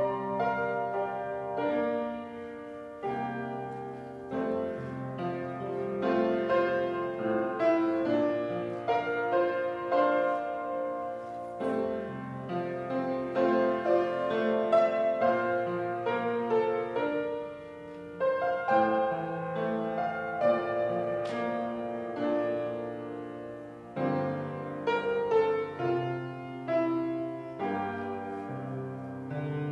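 Solo piano playing a slow piece of held chords with a melody line over them.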